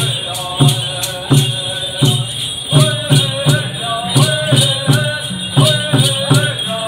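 Pueblo dance song: a steady drum beat, about two and a half beats a second, with voices chanting over it and dancers' hand rattles shaking.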